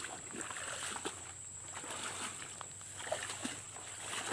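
Wading through shallow muddy water and thick grass: irregular splashes and squelches of feet, with leaves and stems rustling and crackling.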